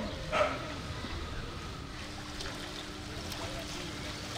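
Floodwater sloshing and splashing as horses wade through a flooded street, with a single dog bark about half a second in and a faint steady hum from about two seconds in.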